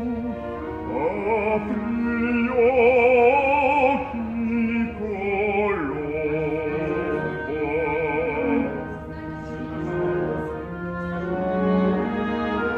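Operatic singing with strong vibrato over an orchestra, heard live in a theatre hall: long wavering sung notes, the loudest stretch about three seconds in.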